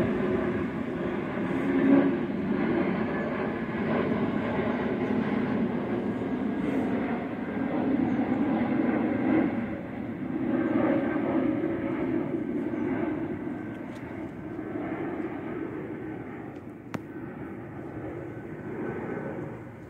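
Jet airliner passing overhead, a steady roar of its engines that slowly fades away.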